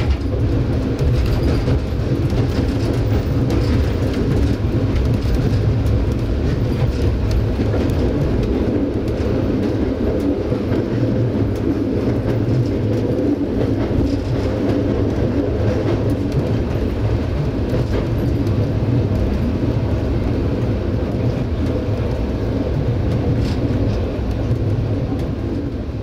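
Passenger train carriage running along the track, heard from inside the coach: a steady low rumble. It fades out near the end.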